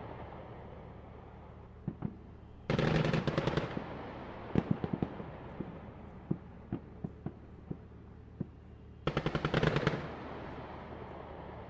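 Battle sound effect of gunfire: two bursts of rapid machine-gun fire, each about a second long, with single rifle shots scattered between them.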